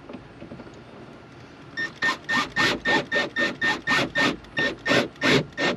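Milwaukee cordless drill driving a screw in quick short bursts, about three or four a second, starting a couple of seconds in, each burst with a brief motor whine.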